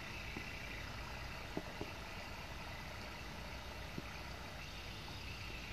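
Faint steady outdoor background with a low rumble, broken by a few soft ticks of rainwater dripping from a roof after a rain shower.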